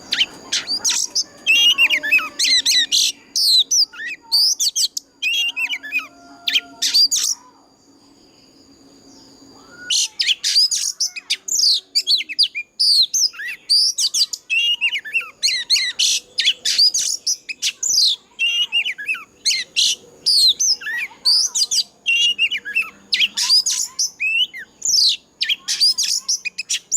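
Oriental magpie-robin singing loud, rapid strings of varied whistled notes. The song stops for about two and a half seconds around a third of the way in, then runs on without a break.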